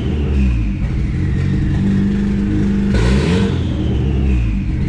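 Turbocharged Honda D16 single-cam four-cylinder idling, still a little choppy sounding because the ignition timing has not yet been set. About three seconds in it is blipped once, the note rising and falling back to idle, with a faint high whine falling away after it.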